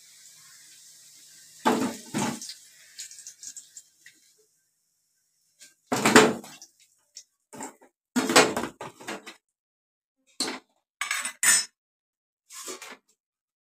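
Metal spatula clattering against a metal kadai and a steel plate in a series of sharp knocks as fried potato pieces are lifted out of the oil. A faint sizzle of the frying oil fades out over the first few seconds.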